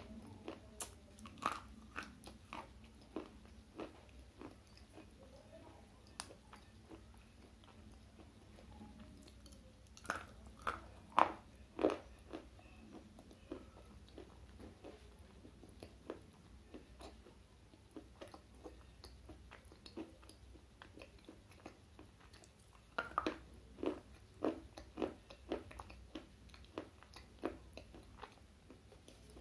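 Slate pencil being bitten and crunched between the teeth, then chewed. Crisp cracks come in runs near the start, about ten seconds in and again near the end, with softer gritty chewing in between.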